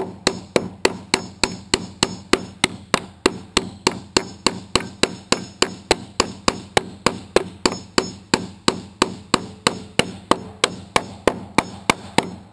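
Steel claw hammer driving nails through metal H1 hurricane clips into wood framing: sharp blows in a steady rhythm of about three a second, without a pause.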